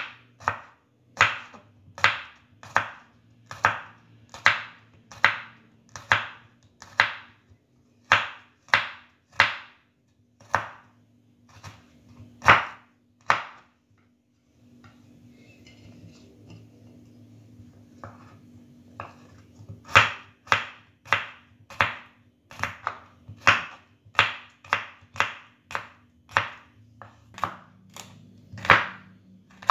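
Kitchen knife slicing garlic cloves on a wooden cutting board, each stroke knocking the board in a steady run of about two a second. The strokes stop for a few seconds midway, then start again.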